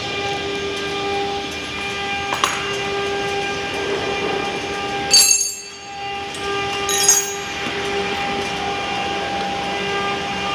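CNC engraving machine running, a steady motor whine and hum with several held tones. Short sharp clicks come about two and a half, five and seven seconds in, with the hum briefly dropping away just after the second.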